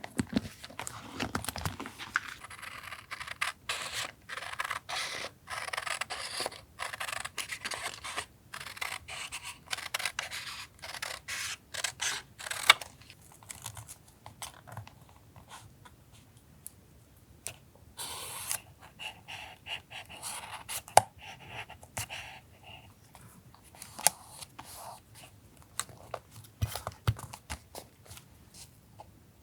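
Scissors snipping through paper in quick runs of cuts, with paper rustling and small taps. The cutting thins out about halfway, leaving scattered handling sounds and a short paper rustle.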